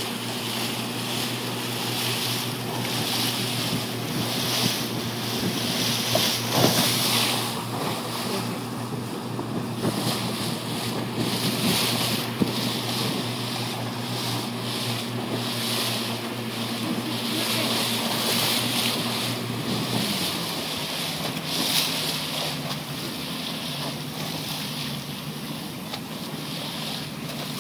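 A boat's engine running steadily, with wind gusting on the microphone and water washing past. About twenty seconds in, the engine note drops lower.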